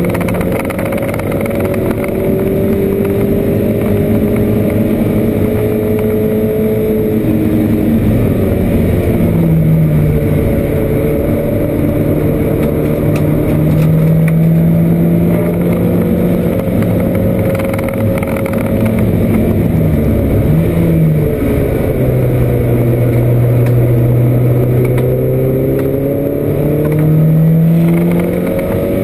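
Porsche 924 race car's four-cylinder engine heard from inside the cockpit under racing load. The revs climb and drop repeatedly through gear changes and braking, with a quick dip and blip about twenty seconds in.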